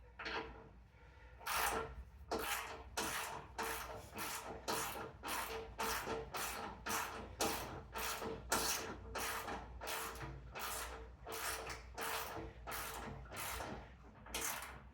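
Hand ratchet turning 13 mm bolts: a steady run of short rasping ratchet strokes, about two a second, starting about a second and a half in and stopping shortly before the end.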